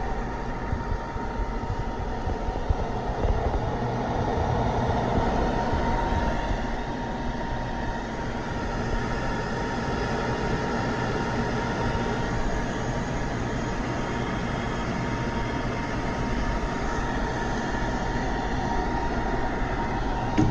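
Covel grinder running steadily, its motor and spindle giving an even mechanical hum with a thin, steady whine.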